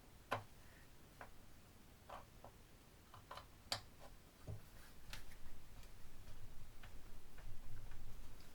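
Faint, irregular small clicks and ticks of a screwdriver turning the mounting screws of a speaker driver to loosen them, with some low handling rumble in the second half.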